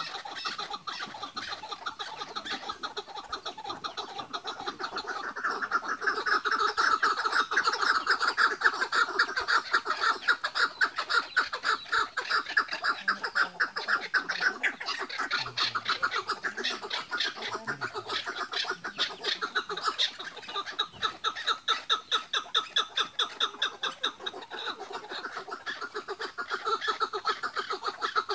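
Caged chukar partridges giving their rapid chattering rivalry call (hıngırma), a continuous fast cackle of many pulses a second. It swells for several seconds about a quarter of the way in and again near the end.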